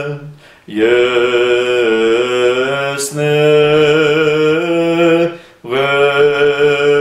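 A solo male voice chants a slow Armenian hymn in long held notes, taking a breath about half a second in and again just after five seconds.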